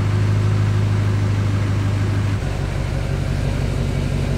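Big-turbo L5P Duramax 6.6-litre V8 turbo-diesel idling just after being started. It holds a steady, even drone at first, and about two seconds in it drops into a lower, pulsing idle.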